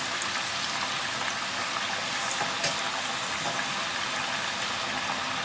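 Sliced potatoes deep-frying in a large pan of hot oil: a steady bubbling sizzle with a few small crackles.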